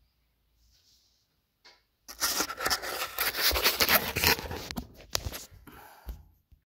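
A phone being handled and taken off its overhead mount: loud rustling, scraping and clicking of fingers and the holder close on the microphone, starting about two seconds in, then dying down with a last knock near the end.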